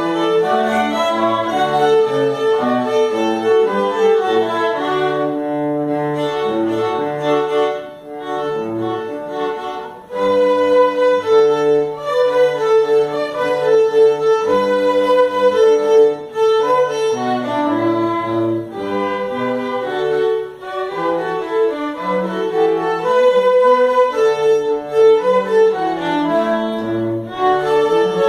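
A string quartet playing a lively tune: violins over cello in short bowed notes, with a brief drop in volume about eight and ten seconds in.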